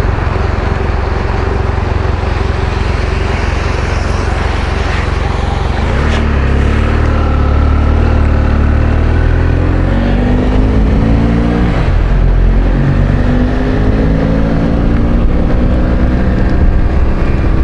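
Motorcycle engine under way with heavy wind rumble on the microphone; the engine note climbs steadily, drops sharply about twelve seconds in as it shifts gear, then climbs again.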